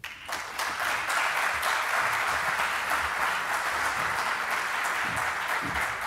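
Audience applauding, building up quickly in the first half-second and then holding steady.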